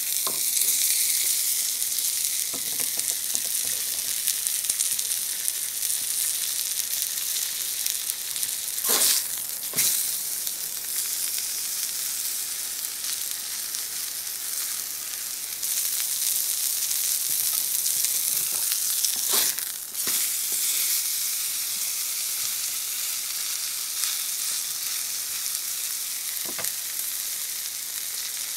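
Ribeye steak sizzling on a hot flat-top griddle: a steady, high frying hiss, broken by a few short clicks, twice close together about nine seconds in and again around twenty seconds in.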